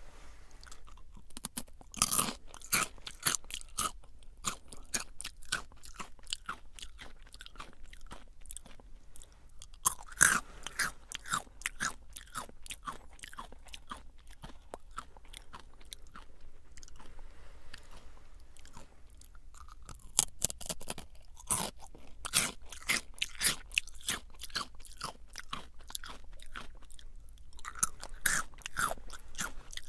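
Jagarico crunchy potato-stick snacks being bitten and chewed close to the microphone: clusters of sharp, crisp crunches every several seconds, with softer chewing crackle in between.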